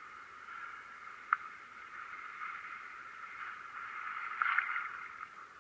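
A steady thin hiss, like static, with a single sharp click about a second in and a short crackle a little after four seconds in.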